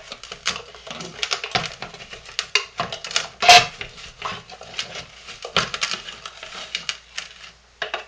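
A spatula scraping and knocking inside a plastic food processor bowl, digging out soap powder packed at the bottom. It is a run of irregular scrapes and clicks, with the loudest knock a little over three seconds in.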